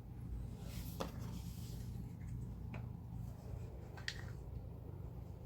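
Hand tools being handled and sorted from a tool bag: a few light clicks and some soft rustling over a steady low hum.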